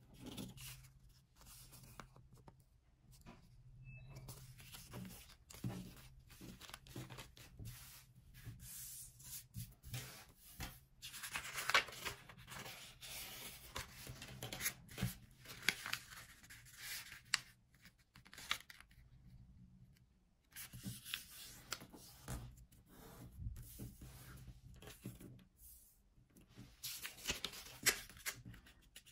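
Two-colour origami paper being handled and folded: irregular rustling and crinkling as the sheet is slid on a wooden table, flipped and creased, with sharp crackles where the folds are pressed flat. A faint steady low hum runs underneath.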